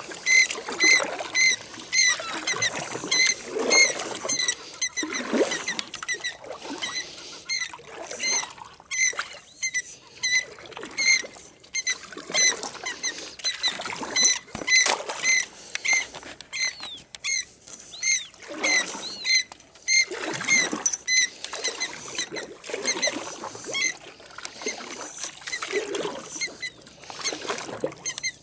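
Oarlocks of a metal rowboat squeaking over and over as it is rowed, short high squeaks a couple of times a second, with the swish of the oars pulling through the water every few seconds.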